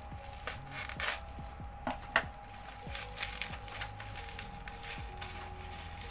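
Packaging being pulled and torn open by hand, with irregular crinkling and crackling and a sharp snap about two seconds in.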